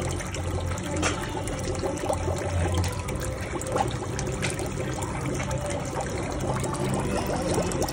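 Water trickling and splashing steadily in a foot fish spa tank, with a low hum underneath.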